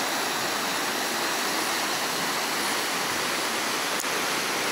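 Shallow rainforest creek rushing over rocks, a steady hiss of flowing water.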